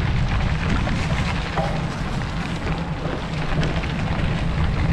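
Wind buffeting and rolling noise on the microphone of a camera carried along on a moving bicycle: a steady, deep rush with a fine crackle over it.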